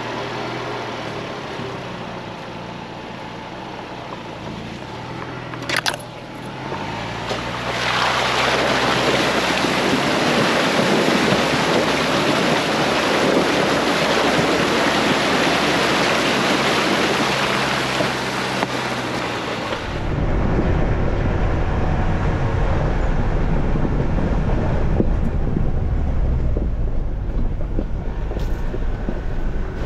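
Ford Bronco driving a rocky creek-side trail, its engine running at low speed. From about eight seconds in, water rushes and splashes loudly around the tyres as it fords a creek. About twenty seconds in the sound switches abruptly to a deep rumble of engine and wind on the camera.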